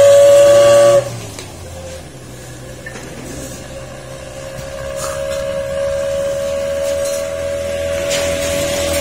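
Daihatsu Zebra pickup's whistle-type 'wolf' exhaust (knalpot serigala) howling with one steady, high-pitched tone that cuts off suddenly about a second in. A similar steady tone comes back and grows louder toward the end.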